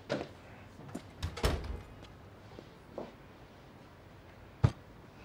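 A door shutting with a heavy thud about a second and a half in, among a few lighter knocks, and one sharp single knock near the end.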